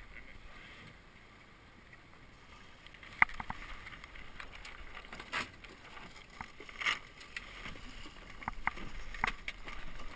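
Water washing along the hull of a Melges 17 sailing dinghy under way, building near the end, with a few sharp clicks and knocks from its rigging and fittings.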